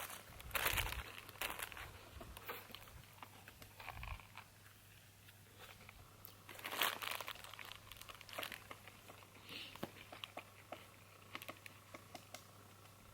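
Intermittent crinkling and rustling with scattered small clicks and knocks, loudest about a second in and again near seven seconds in.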